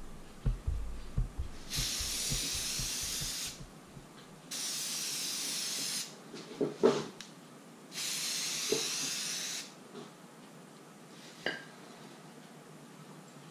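Aerosol spray paint can hissing in three separate bursts of about a second and a half to two seconds each, paint going onto a stencil, with a few short knocks from handling the can between bursts.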